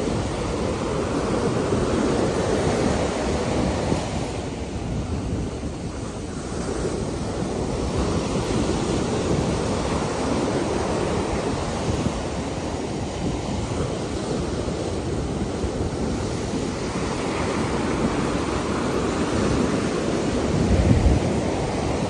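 Gulf of Mexico surf: small waves breaking close by and washing foam up the sand beach, a continuous rushing that swells and ebbs every few seconds. Wind rumbles on the microphone near the end.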